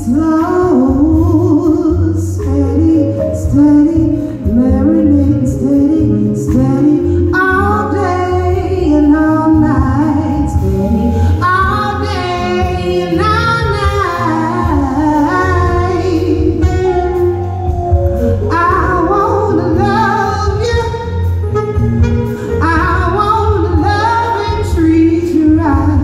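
A woman singing live into a microphone, with instrumental accompaniment that includes a saxophone and a steady low bass line, in a large room.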